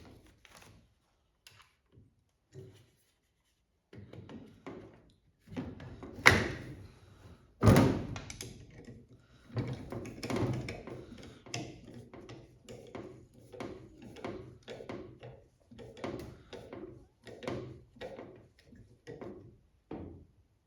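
Irregular clunks and knocks of metal parts and hand tools being handled while a clutch master cylinder is fitted to a pedal assembly, with two louder clanks about six and eight seconds in.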